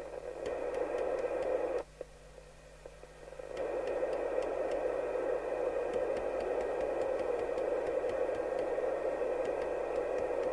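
Receiver hiss and static from a York JCB863 FM CB radio's internal speaker, tuned to an open channel on the aerial. The hiss cuts out for about a second and a half, about two seconds in, then comes back.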